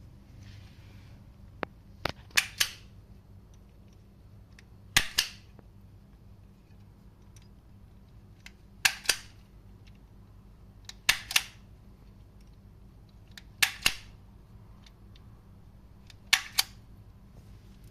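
Sharp clicks in pairs, six times, each pair about a quarter second apart and the pairs coming roughly every two and a half seconds, over a low steady hum.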